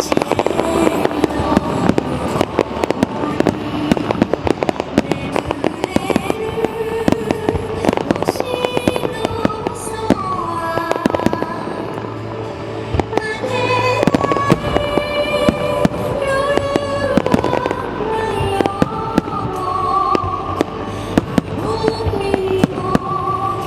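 Fireworks going off in rapid succession, many sharp bangs and crackles close together, over music.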